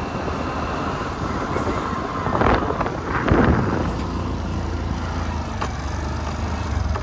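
Motorbike riding along with its engine running steadily under a rush of wind and road noise, with two louder rushes around the middle as it turns onto a rough dirt track.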